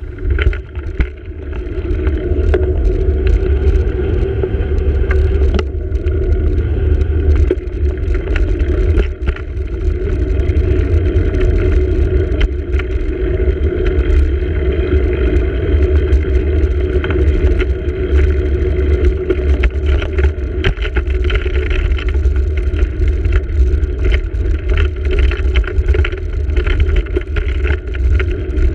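Wind buffeting and road rumble picked up by a bicycle-mounted camera while riding: a steady heavy low rumble with frequent small clicks and rattles from the road surface.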